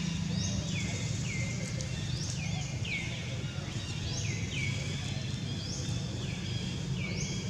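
Outdoor ambience: a chorus of high calls from wild animals, each sliding down in pitch and repeating about twice a second, over a steady low hum.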